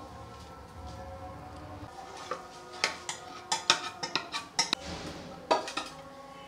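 Steel utensils clinking: a stainless-steel pot knocking against the rim of a steel mixing bowl while sugar syrup is poured onto crumbly dough. The light metallic clinks begin about two seconds in and come in an irregular run, several close together, with one more near the end.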